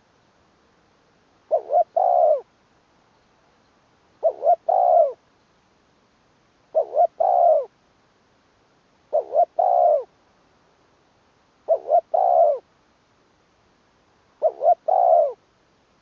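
Spotted dove cooing: a three-part phrase, two short notes then a longer one, repeated about every two and a half seconds, six times over.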